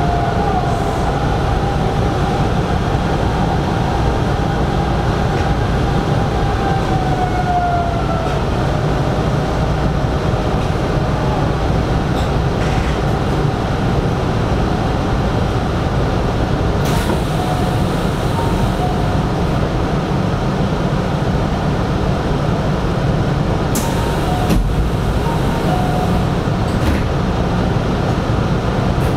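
Hanshin 5500 series electric train running: a steady rumble of wheels and motors, with a whine that slides down in pitch about seven seconds in and a few sharp clicks later on.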